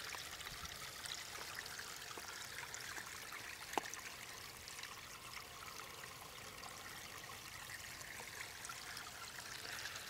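Backyard pond waterfall: water spilling over the rocks and splashing into the pond in a steady trickle. A single short click sounds a little under four seconds in.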